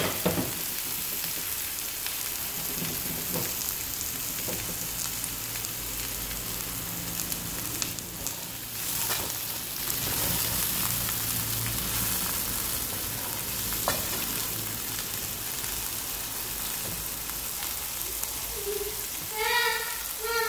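Sliced onions and garlic frying in hot olive oil in a nonstick pan, with a steady sizzle, while a wooden spoon stirs them and now and then knocks against the pan.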